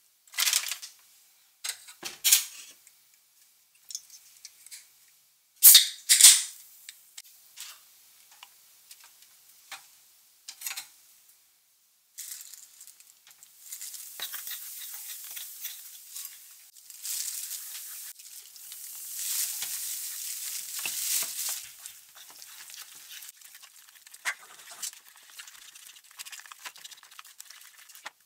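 A silicone spatula stirring and scraping dry frying flour in a bowl in short separate strokes. About twelve seconds in, beer is poured in with a steady fizzing hiss lasting several seconds while the flour is stirred into a wet batter.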